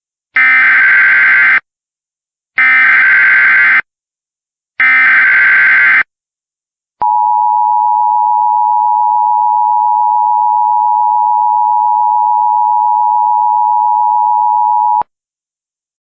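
Emergency Alert System tones: three bursts of digital SAME header data tones, about a second each, a second apart, then the two-tone EAS attention signal, held steady for about eight seconds before it cuts off sharply. They open an EAS activation, here a flash flood emergency.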